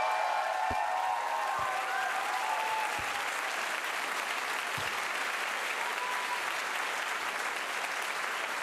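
Large theatre audience applauding steadily, with voices cheering over the clapping in the first couple of seconds and a few dull thuds early on.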